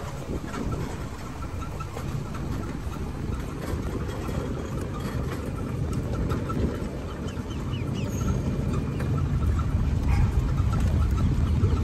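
Golf cart driving along a paved path: a steady low rumble of wind and rolling noise that grows louder near the end, with faint high chirps over it.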